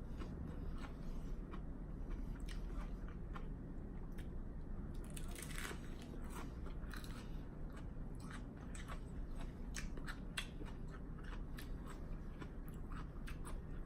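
Mouth chewing and biting into a lettuce wrap of ground chicken and vegetables: a run of irregular crisp crunches and small wet clicks.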